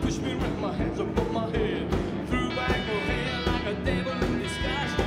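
Live rock 'n' roll band playing: a drum kit keeps a steady beat under an electric guitar.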